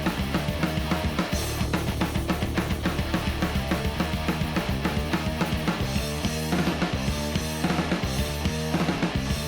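Background music: a drum kit with bass drum and snare playing a fast, steady beat over a bass line.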